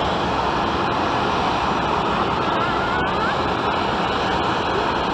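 Boeing 737-700's CFM56-7B jet engines heard as a loud, steady rush of noise with no break or change.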